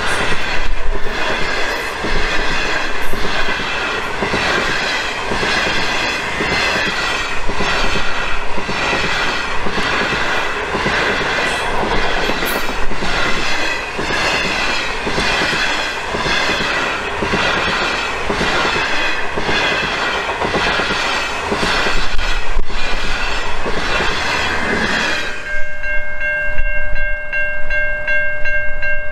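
Steel passenger cars of The Ghan rolling past, their wheels clattering in a steady, even rhythm. About 25 seconds in the last car clears and the clatter stops, leaving the level crossing's warning bells ringing steadily.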